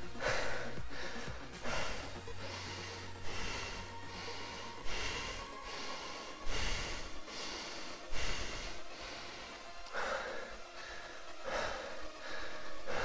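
A man panting hard, a loud breath about every second, as he recovers from an all-out sprint.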